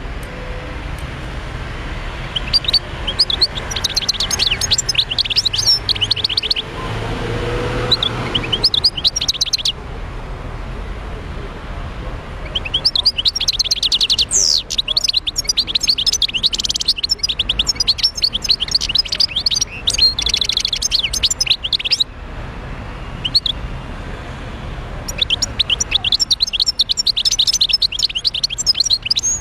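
Wild-caught European goldfinch singing: fast, high twittering phrases in three long bursts with short pauses between them.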